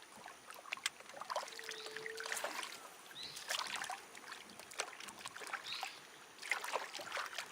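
Light water splashing and scattered knocks against the hull of a small fishing boat, with a brief steady tone about two seconds in.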